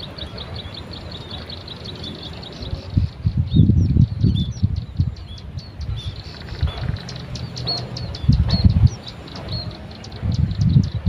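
Small birds calling: a fast run of high ticking notes with short chirps repeating about every half second. Louder bursts of low rustling come about three seconds in, around eight seconds and near the end.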